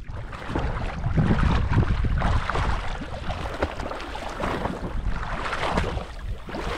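Water splashing and sloshing close to the microphone, with wind buffeting it.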